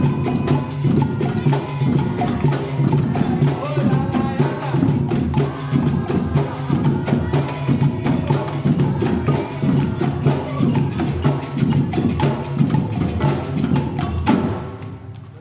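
Capoeira percussion ensemble playing a fast, even rhythm of sharp clicking strokes over low drumming. The music stops suddenly near the end.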